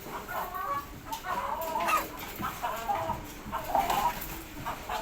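Birds calling in a rapid run of short, pitched notes, several a second, with the pitch wavering from note to note.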